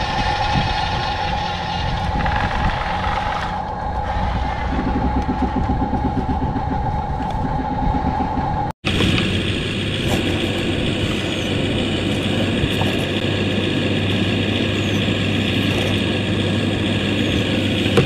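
Double Eagle E579 RC bulldozer running, a steady mechanical engine-like drone with a held whine. It drops out for an instant about nine seconds in and comes back with a higher whine over a deeper hum.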